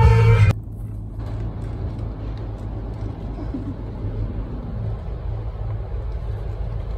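Music with singing cuts off abruptly about half a second in, giving way to the steady low rumble and hum of supermarket background noise.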